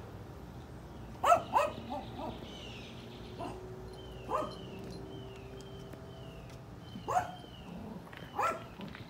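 A small dog barking in a string of short, high yips, about seven in all, the loudest pair about a second in.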